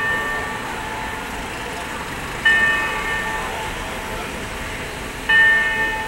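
Wako clock tower bell striking seven o'clock: the same bell tone struck twice, about three seconds apart, each stroke ringing on and fading, with the previous stroke still ringing as it begins. A steady hum of city traffic runs underneath.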